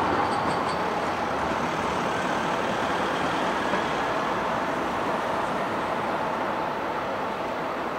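Articulated city bus driving past close by, its engine running and tyres rolling in a steady noise that eases off slightly near the end.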